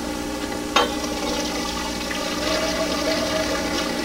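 Water poured from a steel pot through a strainer into a sink, rushing and splashing as pasta is drained, with a metal clank about a second in.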